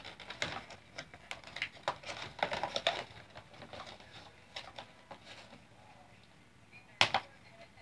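Toy packaging being handled: clear plastic and cardboard crackling and clicking as pieces are pulled out, in a dense run over the first three seconds, then scattered, with one sharp click near the end.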